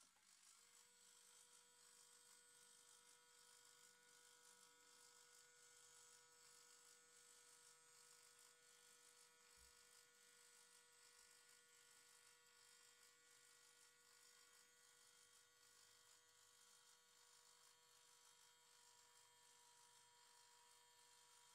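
Near silence: faint steady electrical hum with a light hiss, and one soft low thump about ten seconds in.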